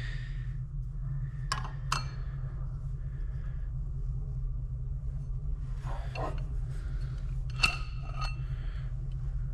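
Steel clutch-pack parts of a 4L80E forward clutch drum clinking and scraping as they are lifted out by hand: a few separate metallic clinks, the loudest one about three-quarters of the way through ringing briefly, over a steady low hum.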